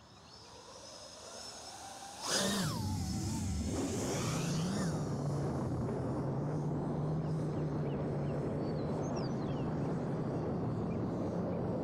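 FPV quadcopter's brushless motors and propellers: a low spin at idle after arming, then a sharp throttle-up for takeoff about two seconds in, with a quick rise and fall in pitch, settling into steady running in flight. Heard close up from a camera mounted on the drone's own tail arm.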